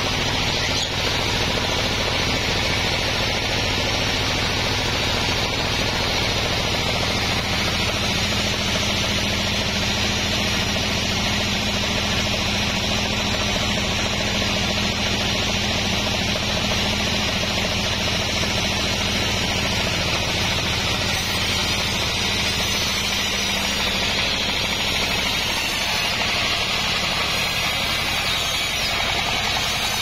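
Band sawmill running, its blade sawing lengthwise through a log: a steady hiss and whine over the low hum of the mill's motor.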